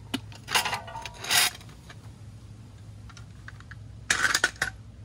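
Metal hand tools clinking and clattering as they are handled and set down: a few brief clatters in the first second and a half, then a quick cluster of clinks about four seconds in.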